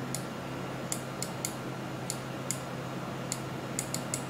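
Computer mouse buttons clicking, about ten sharp clicks at irregular spacing, some in quick pairs, over a steady low hum.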